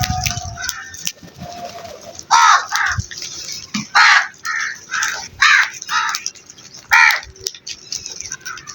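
Crows cawing: about eight short calls, several in quick succession, spread through the middle of the stretch.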